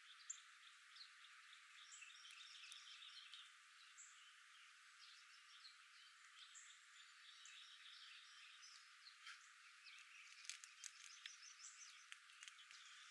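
Faint chorus of small birds chirping and trilling over a light outdoor hiss, busier with quick clicky notes near the end.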